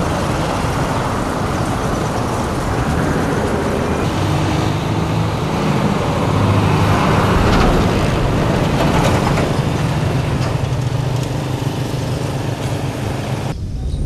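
A motor vehicle's engine running steadily under a loud, dense wash of noise; the sound changes abruptly near the end.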